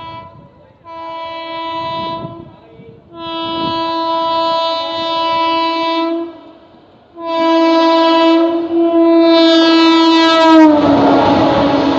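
Indian Railways electric locomotive sounding its horn in a series of blasts as it approaches at speed, the last one held longest and dropping in pitch as the locomotive passes about ten and a half seconds in. Then the loud rush and rumble of the passing train.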